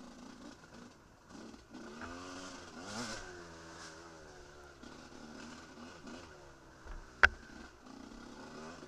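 Enduro motorcycle engine revving up and easing off again and again as the throttle is worked, heard from a camera mounted on the moving bike. One sharp knock stands out about seven seconds in.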